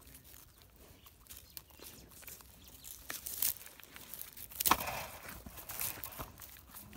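Four-month-old calf tearing off and chewing grass and dry stalk leaves close up: irregular crackling and rustling of the leaves, with one louder tear a little under two-thirds of the way through.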